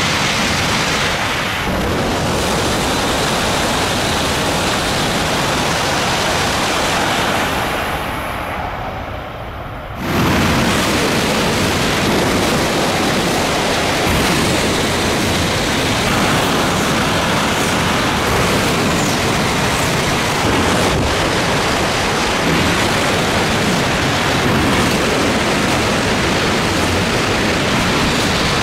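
Tohoku Shinkansen E5/H5-series and E6-series bullet trains passing through at high speed close to the platform, a loud continuous rush of air and wheel noise. It eases about eight seconds in, then rises sharply again about ten seconds in as the next train comes through.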